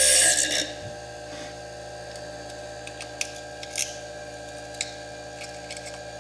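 A slitting disc on a Foredom bench lathe grinds into fire agate, then lifts out of the cut about half a second in. After that comes a steady hum with a few light clicks.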